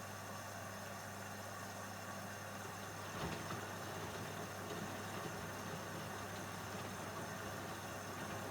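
AEG LS60840L washing machine running mid-cycle with a steady low hum. A single clunk comes about three seconds in, after which the churning gets a little louder.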